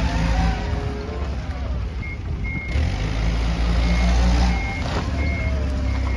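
Propane-fuelled Toyota forklift's engine running as it is driven, with its reversing alarm sounding a short high beep over and over from about two seconds in.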